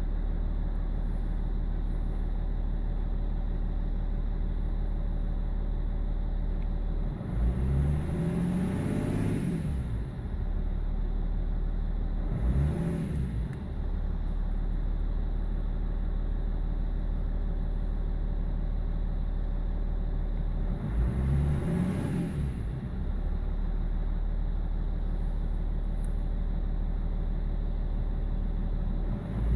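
BMW E46 330d's M57 straight-six diesel idling, with three throttle blips: a longer one about a quarter of the way in, a short one soon after, and another about two-thirds through. Each time the revs rise and fall back to idle. The idle is the lumpy, rough one that the owner puts down to a failing injector, number 6.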